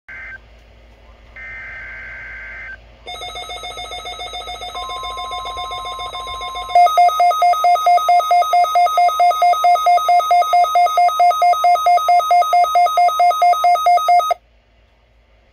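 Two short screechy digital data bursts of a NOAA Weather Radio alert header, then a Midland WR400 weather radio's alarm: a rapid pulsing beep, several beeps a second, that grows louder and steps up sharply about seven seconds in, with a steady higher tone underneath. It cuts off suddenly about a second before the end.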